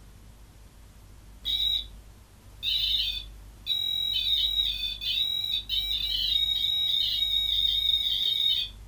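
Shrill electronic alarm tone from a small light-up detector device: a short beep about a second and a half in, a second near three seconds, then a warbling tone held for about five seconds that cuts off suddenly near the end.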